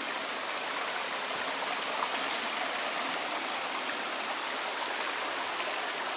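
Small rocky mountain stream running over stones and little cascades, a steady, even rush of water.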